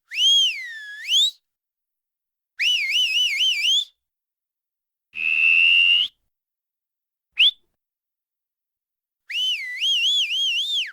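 A person whistling by mouth in five separate short whistles. First a note that dips and then sweeps up, then a warbling whistle, a steady held note, a quick upward chirp, and near the end another warbling whistle.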